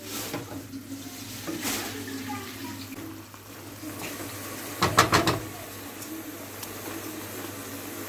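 Water running from a kitchen tap into a sink, with a short burst of clattering knocks about five seconds in.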